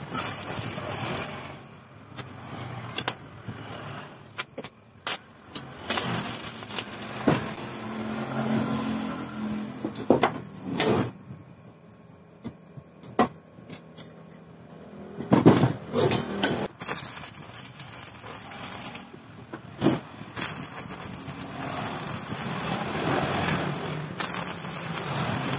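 Steel bars and a bar clamp being handled and set on a wooden workbench: scattered sharp metal clanks and knocks, with a low background rumble that rises and falls.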